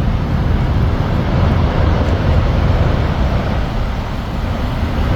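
Tornado at peak intensity, a steady, loud roar with a deep rumble underneath and a rushing hiss above it.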